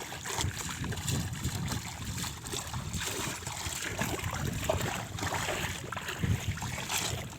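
Shallow water sloshing and splashing irregularly, with wind rumbling on the microphone.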